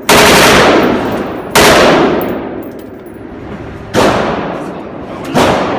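Four single gunshots at uneven intervals, each ringing out with a long echoing tail that fades over a second or more.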